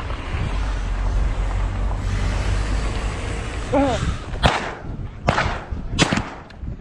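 Rumble of a moving vehicle with wind on the microphone, then a short shout and three shotgun shots in quick succession, about four and a half, five and a half and six seconds in.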